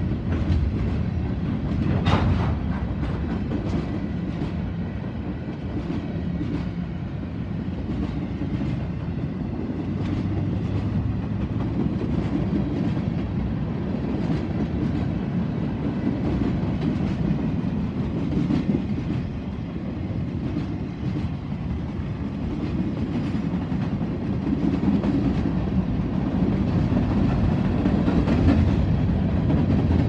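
Freight train cars rolling past: a steady rumble of steel wheels on rail with a repeated clickety-clack of wheels over rail joints, and a sharper clack about two seconds in.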